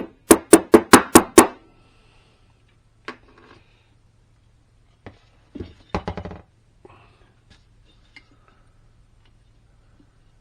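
Metal parts of a manual gear shifter assembly being knocked to free a stuck part: six sharp knocks in quick succession, then a few scattered clunks and light clicks as parts are handled.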